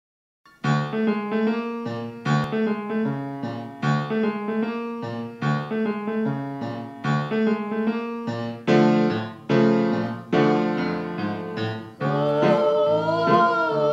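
Piano music: a repeating figure of struck chords that begins about half a second in. Near the end a wavering singing voice joins the piano.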